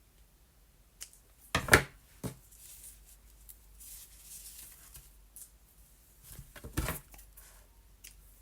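Scissors snipping through yarn a few times, the sharpest cut about a second and a half in and another near the end, with soft rustling of the yarn being handled between the cuts.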